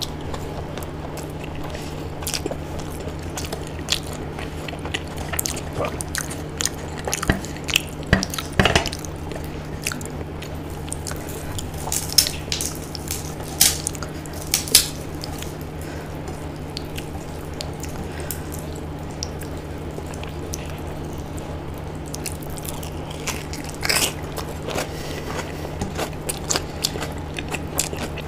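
Close-miked eating by hand: chewing and biting into fried pakodas and crisp papad, with sharp crunches scattered through and the loudest cluster in the middle. A steady low hum sits underneath.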